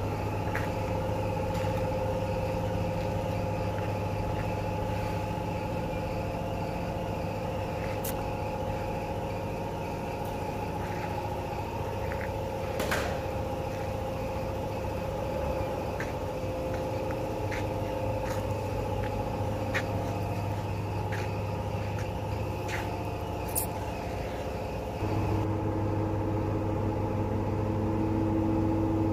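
Steady mechanical hum: a low drone with several held tones, with scattered faint clicks and taps. About 25 seconds in the hum shifts and a new tone joins it.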